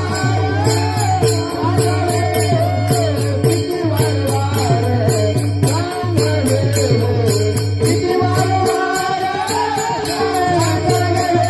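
Marathi abhang, a devotional song, sung by a man to a steady held accompanying tone. Small hand cymbals (taal) jingle and a drum beats a steady rhythm, about two to three strokes a second.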